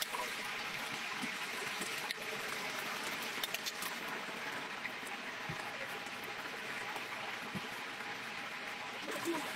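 Hot oil sizzling steadily in a large pot deep-fryer as whole battered chickens fry, with scattered sharp crackles and pops.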